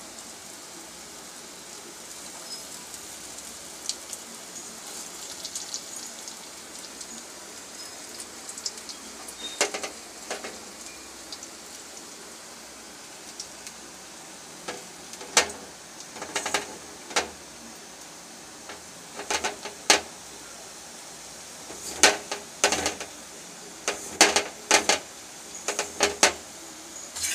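Khesari-lentil batter fritters deep-frying in a wok of hot oil: a steady sizzle with sharp crackles and pops, which come more often in the second half.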